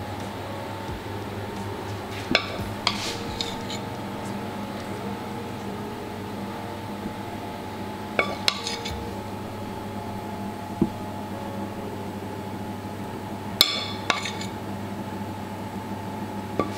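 A metal spoon clinking against a pan and ceramic plates while red wine sauce is spooned out: a few separate sharp clinks, about two, eight and fourteen seconds in, over a steady low hum.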